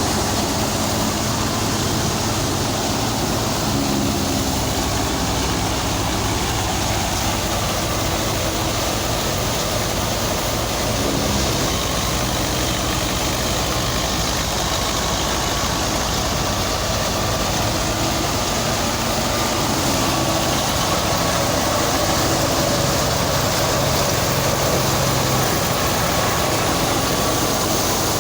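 Harvest machinery engine running steadily under a constant rushing noise, with a faint whine that wavers around the middle.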